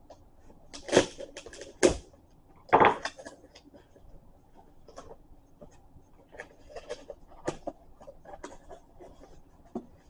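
A cardboard tool box and its packaging being handled and opened: three loud knocks and a scrape in the first three seconds, then lighter clicks and rustling.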